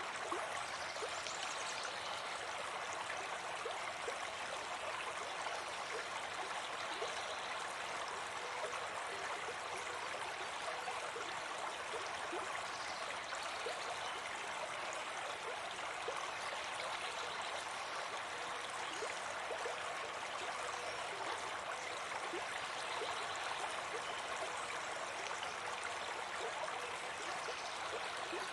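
Steady babbling of running water, like a stream or trickling water feature.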